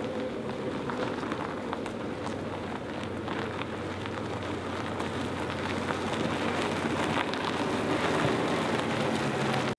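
Ford 9N tractor converted to electric drive rolling over gravel: tyres crunching and popping on loose stones over a low steady hum from the drive, getting louder as it comes close, then cutting off suddenly.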